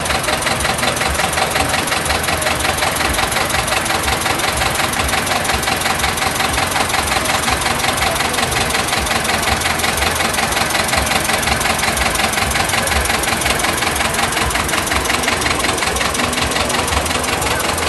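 Vintage tractor engine chugging steadily at low speed close by as it pulls a parade float, with a rapid, even knocking beat.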